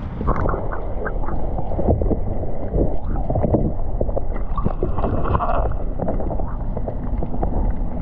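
Water heard through a submerged camera: a muffled, steady rush with many small clicks and crackles running through it.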